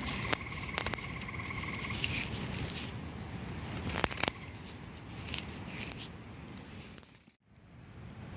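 Scattered crackling taps of footsteps along a creek, over a steady low rush, with a buzzing tone held for the first two seconds. The sound drops out for a moment near the end.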